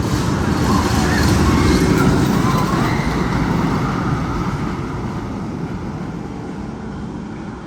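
Loud, low rumbling roar in the Magnum XL 200 roller coaster's tunnel, building over the first two seconds and then fading away, with faint wavering high tones near the start.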